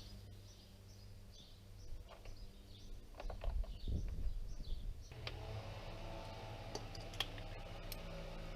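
Faint bird chirps and a few scattered clicks, with a low thud about four seconds in. From about five seconds a steady low mechanical hum sets in.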